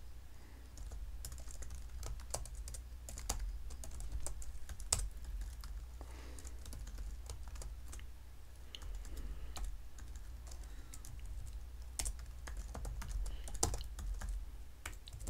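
Typing on a computer keyboard: irregular keystroke clicks coming in quick runs with short pauses, over a low steady hum.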